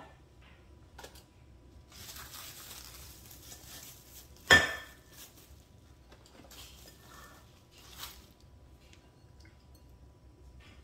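Glass bowls clinking and knocking on the counter, with one loud clink and a short ring about halfway through, and plastic wrap crinkling before and after it.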